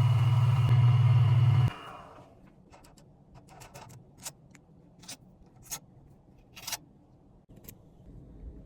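A steady machine hum, likely a woodworking power tool, cuts off abruptly about two seconds in. Scattered light clicks and taps follow.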